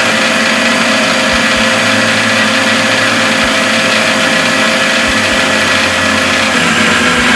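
Prestige electric mixer grinder running at speed, its steel jar blending a banana and peanut-butter shake: a loud steady motor whine with the churn of the mix, cut off at the end.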